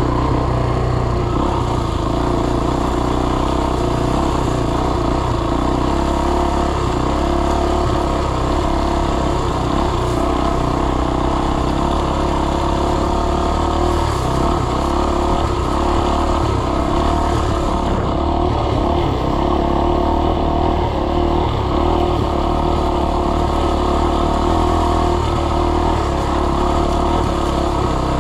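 Dirt bike engine running at a steady, even speed, without marked revving.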